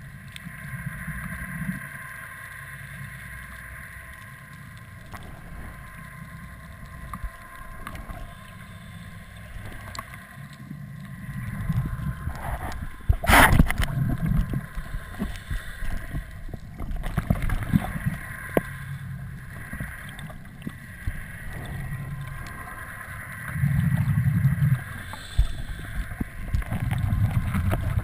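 Seawater sloshing and gurgling around a camera in an underwater housing as it bobs in and out of the surface, with a steady hum. There are low rumbling surges of water several times, louder near the middle and the end, and one sharp knock about 13 seconds in.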